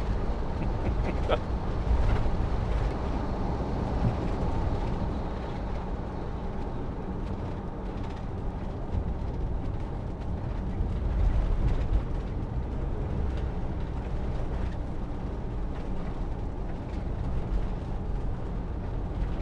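Steady low rumble of engine and tyre noise inside the cab of a Bailey Adamo motorhome driving along a country road.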